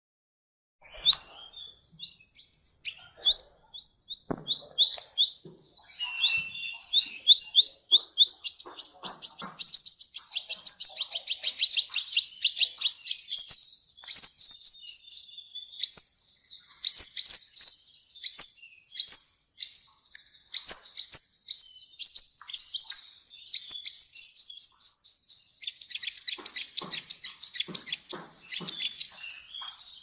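Male van Hasselt's sunbird (kolibri ninja) singing a long, high song of fast, sweeping chirps strung together in rapid trills, with brief pauses between phrases.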